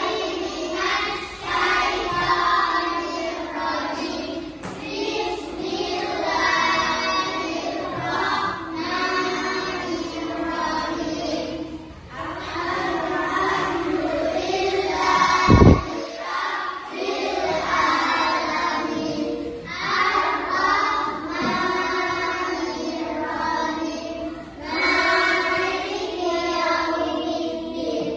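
A group of children singing together in continuous phrases, with a single loud thump about halfway through.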